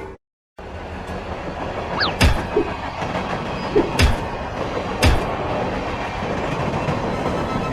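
Train running on the rails: a steady rumble that starts abruptly, with three heavy thumps a second or so apart.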